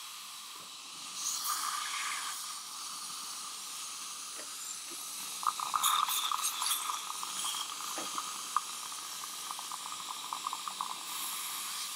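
Steady hiss of water spray and suction in the mouth during dental tooth preparation. A run of rapid crackles starts about halfway through.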